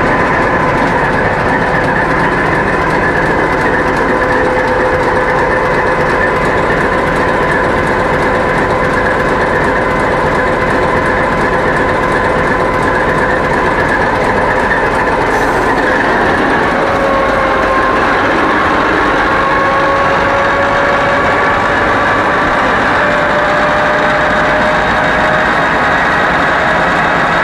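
Kolomna 5D49 V16 diesel engine of a Class 232 'Ludmilla' locomotive running loud inside its engine room, at first idling with a steady whine. A little past halfway it begins to speed up, and the whine slowly rises in pitch.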